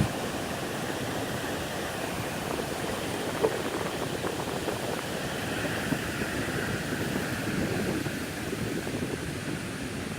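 Steady wash of big ocean surf with wind on the microphone, with a couple of faint knocks about a third of the way in and past the middle.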